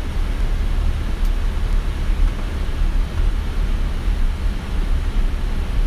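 Steady low rumble and hiss inside the flight deck of a Boeing 777 freighter: engine and airflow noise, even throughout with no sudden events.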